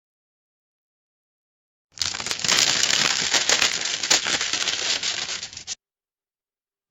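Paper banknotes crinkling and rustling in the hand: a dense, irregular crackle that starts about two seconds in, lasts nearly four seconds and stops abruptly.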